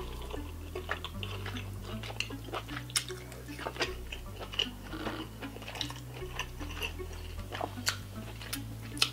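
Close-miked chewing of a mouthful of king crab meat: scattered mouth clicks and smacks, a few each second, with a sharper click near the end. Soft background music with a stepping bass line runs underneath.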